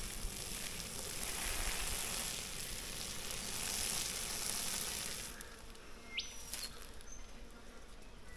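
Hot water pouring out through a pot's strainer lid and splashing onto grass, a steady hiss and splatter that tails off about five seconds in as the pour stops.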